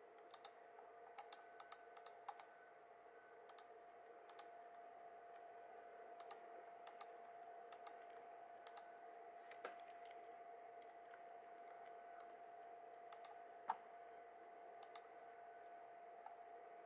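Laptop keyboard keys tapped in short, irregular bursts of sharp clicks, over a faint steady hum.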